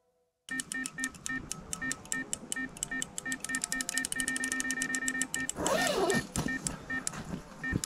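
Electronic carp bite alarm sounding a run: rapid beeps that merge into a steady tone about four seconds in and then break up again, signalling a take with line being pulled off the rod. A brief loud rustle about six seconds in.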